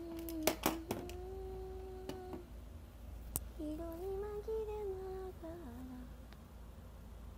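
A woman humming two long held notes. The first is steady. The second rises slightly, then steps down near its end. A few sharp clicks come in the first second, and one more comes partway through.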